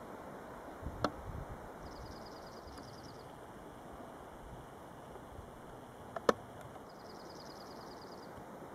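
Faint steady outdoor hiss. A sharp knock comes about a second in, and a louder one a little past the middle. Twice, a brief trill of rapid high-pitched ticks sounds.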